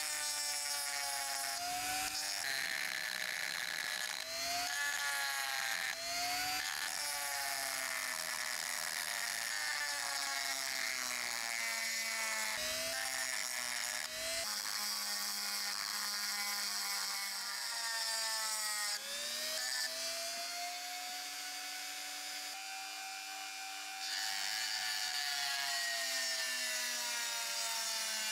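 Handheld rotary tool spinning a pink grinding stone against a rusty steel screw head and frame. The motor whine sags and recovers in pitch again and again as the stone is pressed on and eased off.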